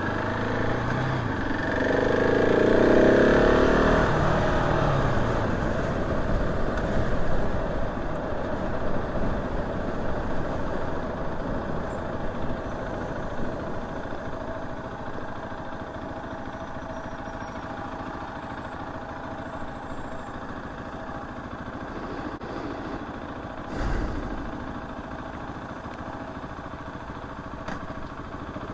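KTM 690 SMC R single-cylinder engine pulling up in pitch under acceleration for a few seconds, then running steadily at cruising speed with wind and road noise. A short thump comes about four seconds before the end.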